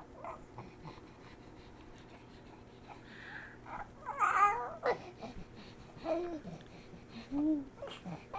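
Two-month-old baby cooing: after a few quiet seconds, a handful of short pitched coos, the loudest a rising-and-falling one about four seconds in, with shorter ones near the end.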